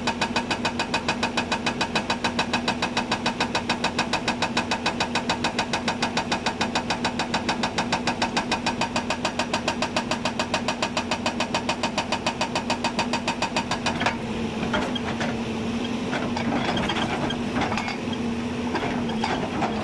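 Hyundai 290 crawler excavator running, with a rapid, even pulsing for about fourteen seconds that then gives way to a steadier hum with scattered knocks.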